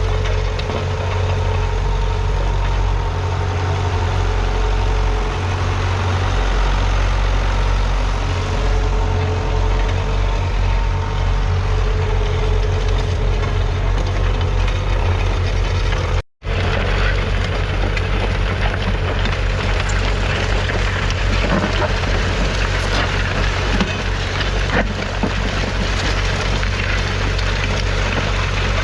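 John Deere 6210's 4.5-litre four-cylinder diesel engine running steadily, with a thin steady whine over it for roughly the first half. The sound cuts out for a split second about sixteen seconds in.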